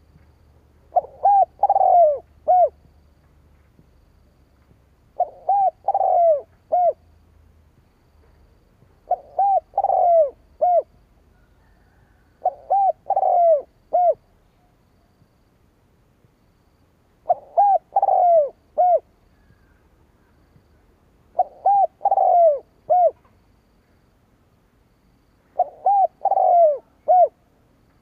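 Spotted dove cooing: seven phrases about four seconds apart, each a short run of low coos.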